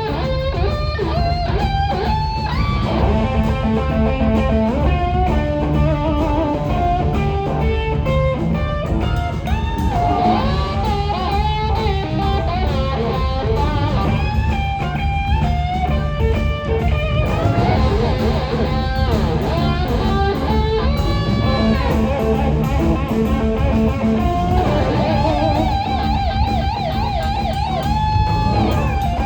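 Live blues-rock band playing an instrumental passage: a lead electric guitar plays bending, gliding lines with vibrato and long held notes over bass and drums.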